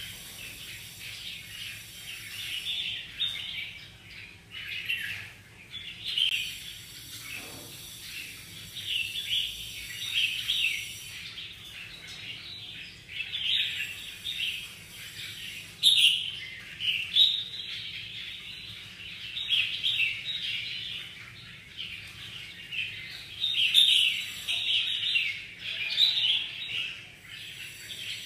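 Many caged red-whiskered bulbuls chirping and calling over one another, short high chirps that swell and ease in waves every second or two.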